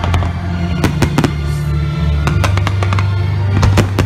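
Fireworks shells bursting in a rapid run of sharp bangs, densest about a second in and near the end, over the show's loud musical score with sustained low notes.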